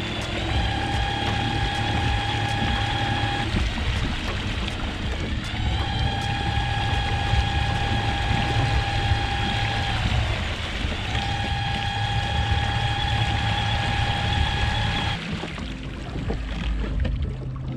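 Torqeedo Ultralight 403 electric outboard motor running with a steady high whine that spins up and cuts off three times, over wind and water noise from the kayak's wake. The whine stops a few seconds before the end, when the motor is tilted up out of the water.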